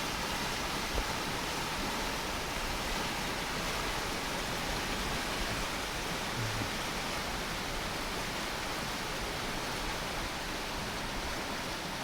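Mountain stream rushing steadily over its rocky bed, a constant even noise with no breaks.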